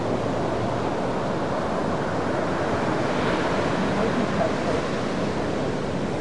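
Ocean surf: small waves breaking and washing in whitewater, a steady rushing noise with no distinct separate events.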